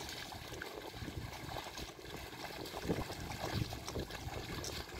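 Muddy water in a flooded paddy field sloshing and splashing as bullocks pull a plough through it, a low, uneven wash of water noise with scattered small splashes.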